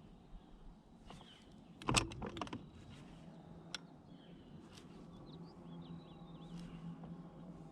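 Faint outdoor ambience with a few small bird chirps and a low steady hum, broken about two seconds in by a short burst of sharp clicks and knocks.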